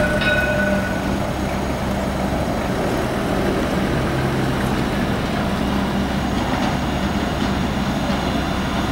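Low-floor electric tram approaching slowly along its track, heard as a steady low hum over street noise.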